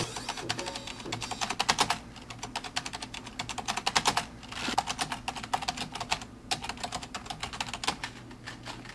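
Fast typing on a computer keyboard: rapid runs of key clicks, with a couple of short pauses.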